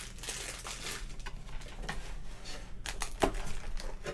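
Thin plastic packaging bags crinkling and rustling as a hand rummages among bagged accessories in a cardboard box, with a few sharp clicks and taps, the loudest about three seconds in.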